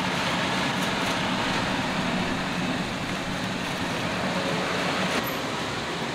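Steady mechanical running noise with a low hum, unchanging throughout.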